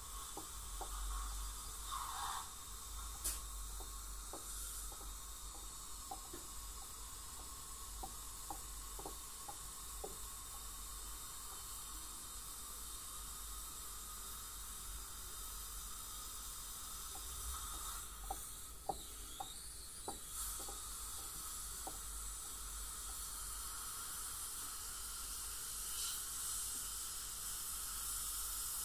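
Dental cleaning equipment running: a steady hiss of water spray and suction in the patient's mouth, with scattered light clicks of instruments against the teeth.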